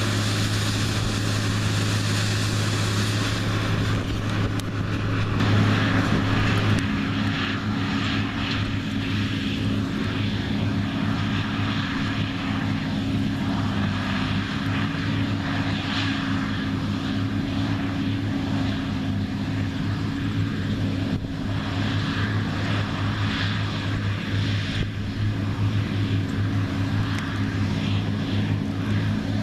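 New Holland CR9060 twin-rotor combine running steadily while harvesting soybeans: a constant engine drone and low hum under a broad mechanical hiss from the threshing machinery. About six seconds in, the hiss eases and the hum's tone shifts slightly.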